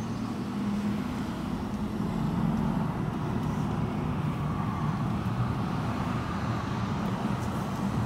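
Car engine and tyre noise heard from inside the cabin as the car drives slowly forward: a steady low hum.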